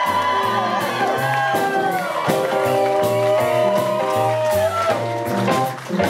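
Live jazz band playing, with drum kit and upright bass under a lead melody that holds long, wavering notes.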